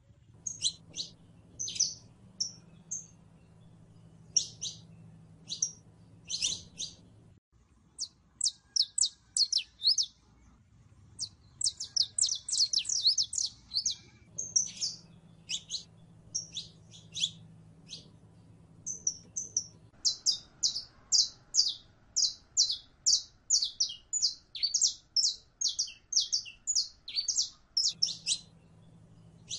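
Saffron finch (Sicalis flaveola) singing in full song: phrases of sharp, high chirped notes and fast trilled runs, separated by short pauses.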